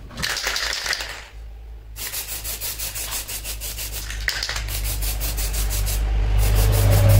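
ABRO clear-coat aerosol spray can hissing: a short burst, then long bursts of spraying with brief breaks about four and six seconds in. A steady low hum runs underneath and grows louder near the end.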